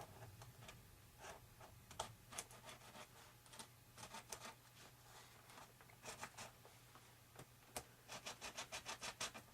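Faint scratching and rubbing of hands working with parts and materials on a workbench, with scattered light ticks and a quick run of about ten ticks near the end.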